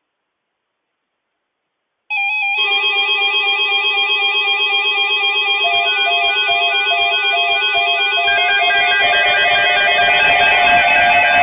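Several weather alert radios sound their alarms together, signalling a new alert. The electronic beeping and warbling tones start suddenly about two seconds in, and more alternating tones join at about six and eight seconds.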